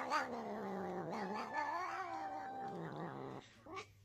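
Domestic cat giving a long, drawn-out weird meow, close to a yowl, its pitch wavering up and down. It breaks off about three seconds in.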